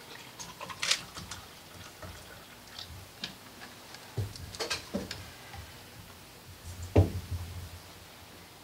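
Glasses and bottles clinking and knocking on a tabletop as they are handled, with scattered light ticks between. The loudest knock, with a dull thud under it, comes about seven seconds in.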